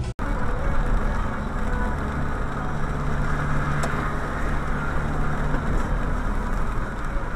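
Steady cabin noise from a car driving in rain, heard through a dashcam's microphone: a low engine hum under an even hiss of tyres on the wet road.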